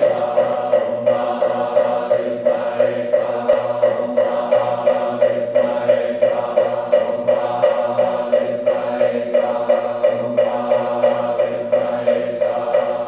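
A group of voices chanting a Zen Buddhist sutra in unison on one steady pitch, with an even, quick syllable rhythm.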